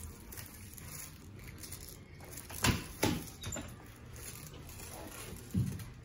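Handling noise on a padded chiropractic treatment table as the patient is repositioned: two sharp knocks about a third of a second apart midway, then a dull thump near the end.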